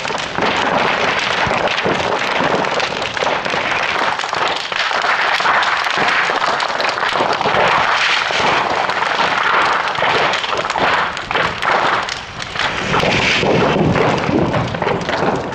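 Large bonfire of New Year pine and bamboo decorations burning fiercely, a dense steady crackle with many sharp pops and cracks from the burning bamboo and green branches.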